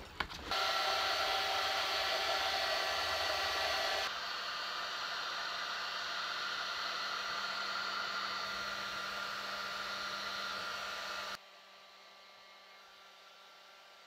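Heat gun blowing steadily, melting wax into cloth. It drops to a lower level about four seconds in and cuts off suddenly near the end.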